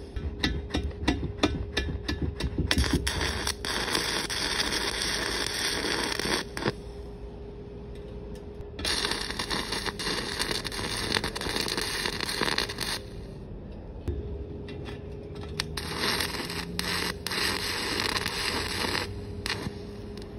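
Stick-welding arc on a 7018 3/32-inch electrode, crackling and sputtering in three runs of a few seconds each with short quiet gaps between. The arc is struck and released over and over, a tack technique that concentrates heat on the thicker metal so as not to blow holes through the thin sheet.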